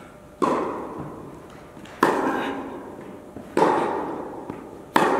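Tennis ball struck by rackets in a baseline rally, four sharp pops about a second and a half apart, each ringing on in the echo of an indoor tennis hall.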